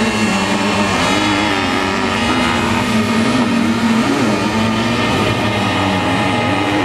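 Sidecar motocross outfits' engines revving hard as they race, the engine note rising and falling with the throttle.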